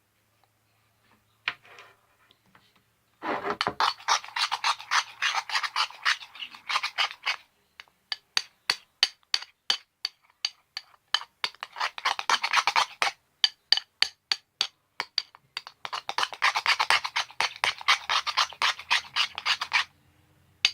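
Toothpaste slime being mixed and worked: fast rubbing, scraping strokes in long bursts with short pauses, starting about three seconds in.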